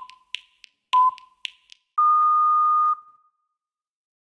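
Workout interval-timer beeps: two short beeps a second apart, then one longer, slightly higher beep lasting about a second, the countdown signal to stop the exercise. Faint clicks fall between the beeps.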